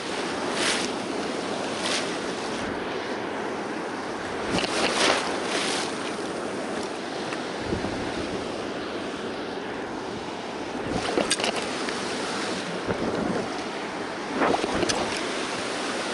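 Ocean surf washing and breaking in the shallows, with wind buffeting the microphone in several loud gusts.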